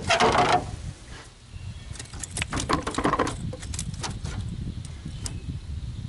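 Camera handling noise: a loud rustle in the first half second, then a run of light clicks and knocks from about two to four seconds in, over a low steady rumble.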